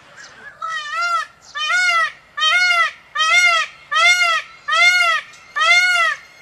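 White Indian peacock calling a rapid series of about seven loud calls, each rising then falling in pitch, roughly one every three-quarters of a second, starting about half a second in.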